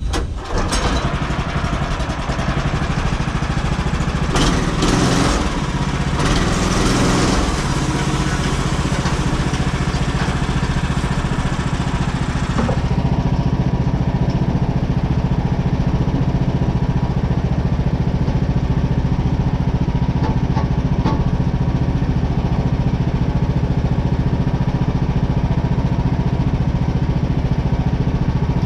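Gas engine of a Woodland Mills portable bandsaw sawmill starting up, then running steadily. About 13 seconds in, the higher hiss over the engine drops away and the engine runs on alone.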